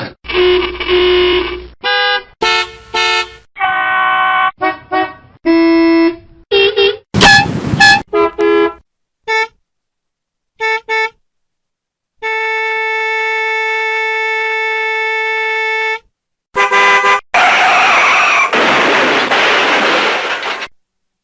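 A rapid run of different vehicle horns, mostly air horns of the kind fitted to buses and trucks, each blast starting and stopping abruptly with short gaps between them. About twelve seconds in, one horn holds a steady note for about four seconds, and near the end comes a loud, rough blast lasting about three seconds.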